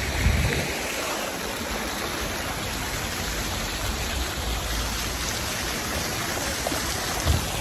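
Water jets of a square's fountain splashing down onto the pool, a steady rushing hiss.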